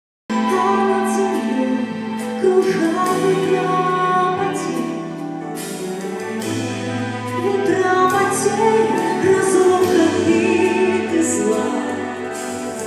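Music: the instrumental introduction of a song, with sustained chords and a melody line, starting suddenly just after the start.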